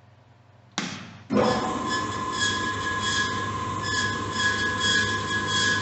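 Hyd-Mech S-20 Series II horizontal bandsaw started about a second in: after a sudden start the saw runs with a steady whine and hum, and a higher squeal that comes and goes.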